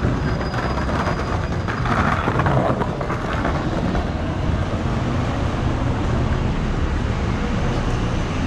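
City street traffic with a large vehicle's engine running steadily, and a brief louder surge of noise about two seconds in.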